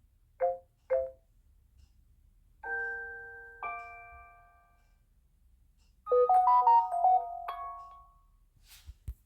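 Samsung Galaxy S21 Ultra notification tones playing one after another: a quick two-blip tone, then two ringing chime notes that fade out, then a short tune of several quick notes. A faint click comes near the end.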